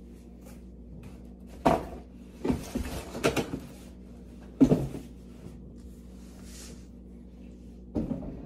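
Cardboard shoebox handled on a table: a series of separate knocks and thumps as the box and lid are handled and put aside, the loudest about four and a half seconds in.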